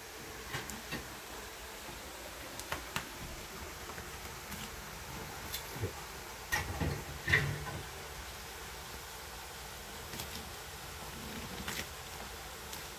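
Scattered light clicks and knocks of kitchen handling over a steady hiss, with a cluster of louder, duller knocks about seven seconds in.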